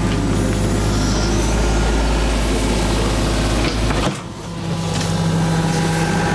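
An engine running steadily with a deep low hum, which drops away abruptly about four seconds in.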